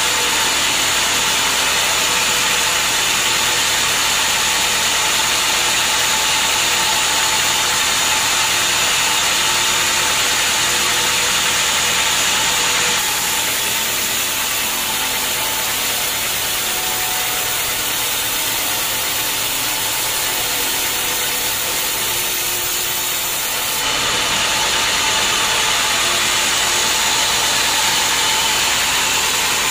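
Band sawmill running steadily as its blade rips lengthwise through a teak beam. The sound eases slightly for about ten seconds in the middle, then picks back up.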